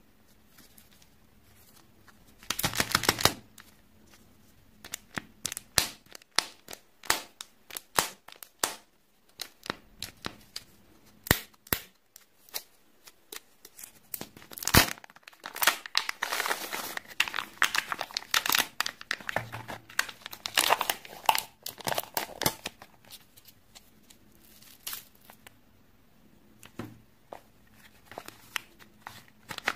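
Kinder Joy egg's plastic foil wrapper being crinkled and peeled off by hand: sharp crackling and tearing in bursts, heaviest a few seconds in and again through the middle.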